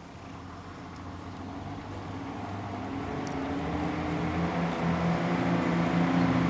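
City bus approaching, its engine growing steadily louder as it draws near.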